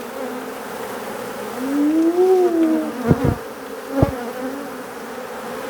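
Mass of honeybees buzzing steadily. Near the middle one louder buzz rises and then falls in pitch, and a few short knocks follow.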